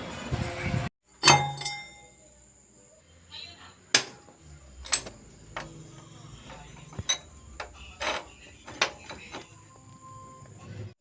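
A steady noise cuts off about a second in. Then comes a loud metallic clank that rings briefly, followed by a string of sharper metal clicks and taps spaced about a second apart, typical of steel workshop parts being knocked together.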